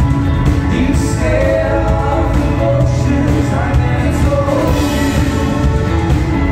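Live rock band playing electric guitars, bass guitar and drums with a steady beat, and a lead vocal singing over it.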